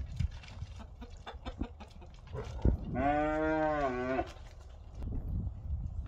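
A cow moos once, a single call a little over a second long about halfway through. Scattered knocks and shuffling from the herd's hooves in the mud come before it.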